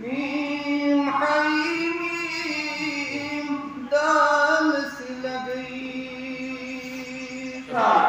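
A man's voice chanting a devotional recitation in long, held melodic notes, phrase after phrase, with no instruments to be seen. Near the end a louder voice cuts in.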